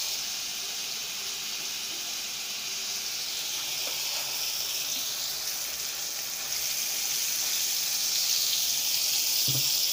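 Onion-tomato masala sizzling in oil in a frying pan as a whole cow brain is slid in and pushed about with a wooden spoon. A steady hiss, growing a little louder in the second half.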